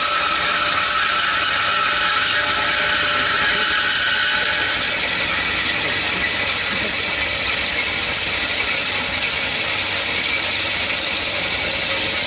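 Cormak G5025 metal-cutting band saw running with a steady mechanical noise; a high ringing tone fades out about five seconds in.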